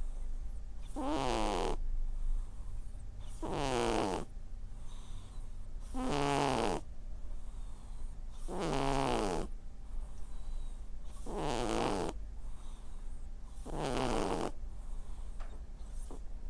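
Sleeping cat snoring in deep sleep: a short pitched snore about every two and a half seconds, six in all, over a steady low hum.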